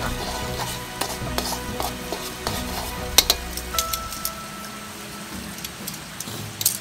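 Metal tongs stirring chopped onions in an aluminium wok over a wood fire: irregular clinks and scrapes of metal on metal over a steady sizzle of frying. The sharpest clink comes about three seconds in.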